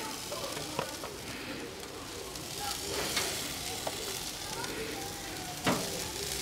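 Marinated chicken sizzling steadily on a charcoal barbecue grill. A few sharp clicks come through, the loudest near the end.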